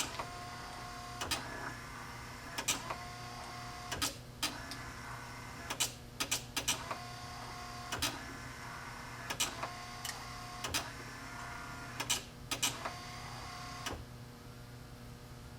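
Electric windshield wiper motor running on a test bench through a relay-and-switch hookup. Each cycle, about every 1.4 seconds, brings a short motor whine and sharp clicks. The cycling stops about 14 seconds in.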